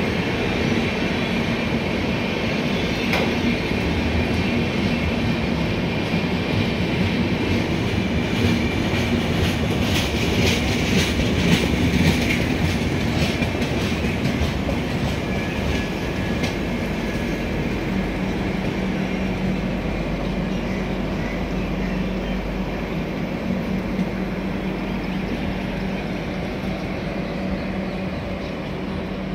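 Express train of LHB passenger coaches rolling slowly past at close range, a steady rumble of wheels on rail. A run of sharp clicks comes around the middle as the wheels cross rail joints.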